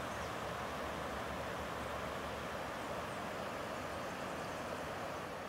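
Floodwater from an overflowing creek rushing steadily across a paved road: an even, unbroken rush.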